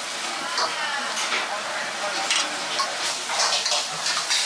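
Metal ladle scraping and clinking in a steel pot of oily chili-fried minced pork over a sizzle of hot oil, with short, frequent metal clinks.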